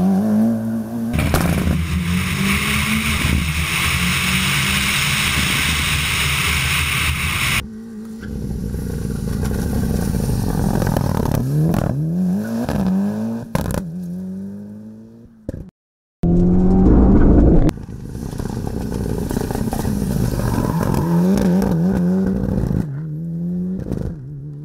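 Turbocharged 2.3-litre stroked 4G63 four-cylinder of a Mitsubishi Lancer Evo VI accelerating hard, its pitch climbing and dropping back again and again as it is revved up and shifted. A loud even rushing noise covers it from about a second in until nearly eight seconds in, and the sound cuts out briefly past the middle.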